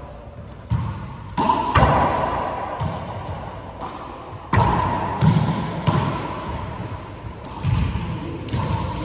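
Handball rally: the small rubber ball smacked by hands and slapping off the front wall and wooden floor, about ten sharp, uneven knocks. Each knock rings in the bare walls of the enclosed court.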